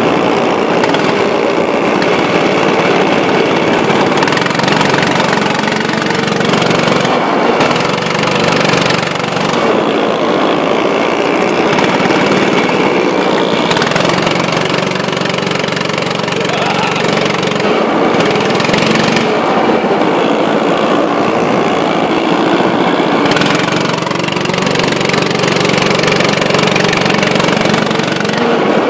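Small go-kart engines running at speed around a track. The sound is loud and continuous, and the engine note shifts several times as the karts brake and accelerate.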